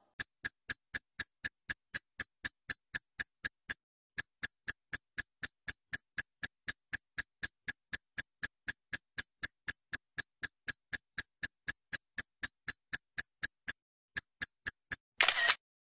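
Clock-ticking sound effect: even, sharp ticks about four a second, with two brief pauses. A short burst of noise comes near the end.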